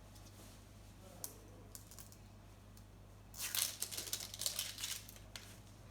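Plastic toy packaging being handled: a few faint clicks, then about two seconds of crinkling and rustling plastic as a small packet is worked open.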